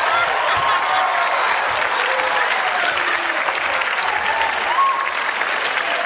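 Studio audience applauding steadily, with a few voices calling out through the clapping.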